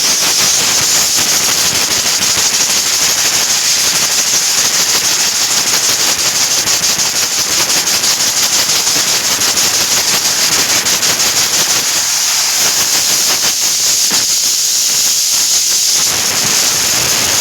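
Loud, steady rush of air blowing in the paint booth: compressed air or the booth blower blasting air onto a freshly painted car, a continuous hiss that cuts off suddenly.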